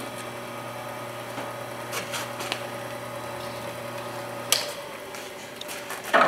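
Wood lathe running with a steady hum while a banksia pod spins on it. There are a few faint taps, a sharp click about four and a half seconds in, after which the lowest part of the hum drops away, and a short, louder rustle at the very end.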